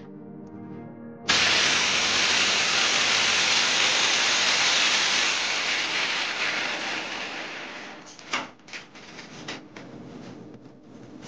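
Background music, over which a loud, steady hiss of noise cuts in suddenly about a second in and fades away over the next several seconds, followed by a few sharp knocks.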